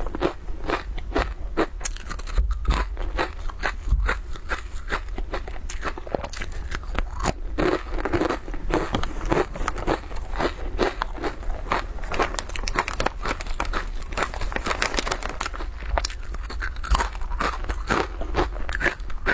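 Close-up crunching and chewing of crispy guoba (lattice-shaped fried grain crisps), with many quick, sharp crunches one after another.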